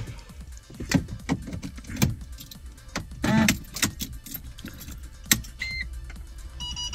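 Car keys jangling and clicking as the ignition key of a Mercedes is put in and turned. A short electronic beep comes near the end, and the parking-sensor warning then starts beeping in a steady run as the ignition comes on.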